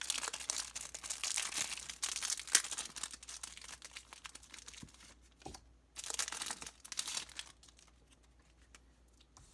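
Plastic packaging crinkling and tearing as it is opened by hand, in two stretches with a short pause between, then only faint rustling.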